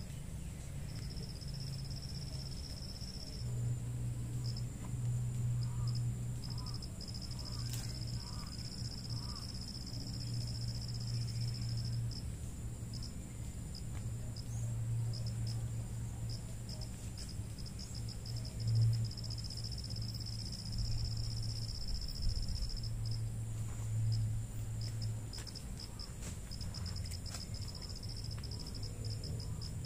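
Insects, crickets by their sound, trilling steadily at a high pitch with short breaks. Beneath them is a louder low hum that swells and fades several times.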